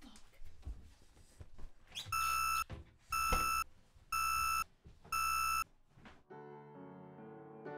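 Some shuffling and light knocks, then four loud electronic beeps about a second apart, each a steady high tone lasting about half a second. Soft piano music comes in near the end.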